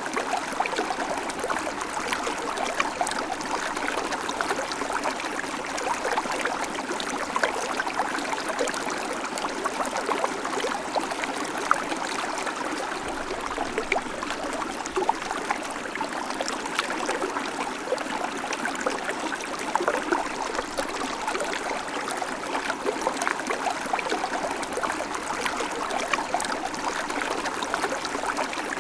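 A small babbling creek, water trickling and splashing over stones with many small plips and gurgles in a steady, even flow.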